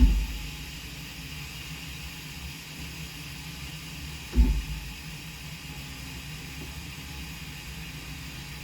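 Steady low electrical hum from an air conditioner that won't start, with two brief low thumps about four seconds apart.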